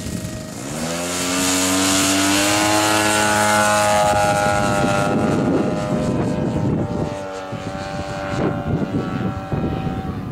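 Radio-controlled model Piper Pawnee's engine and propeller opening up to full throttle about a second in, the pitch rising quickly, then holding a steady high note through the takeoff and climb-out. It grows a little fainter in the second half as the plane flies away.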